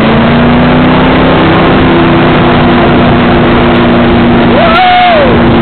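Ski boat's engine running steadily at towing speed under loud rushing wind and water noise, its pitch edging up slightly about two seconds in.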